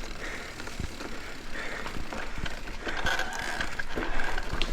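Mountain bike rolling over a bumpy dirt trail: tyres on the ground and the bike's chain and frame rattling with irregular clicks and knocks, over a low rumble of wind on the microphone.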